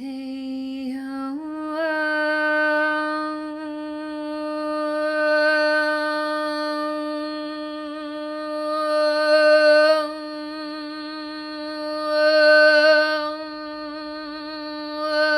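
A woman's voice toning one long sustained note, as in light language sound healing: it begins a little lower, steps up about a second in, and is held with the vowel colour shifting and swelling louder twice, then slides down at the end.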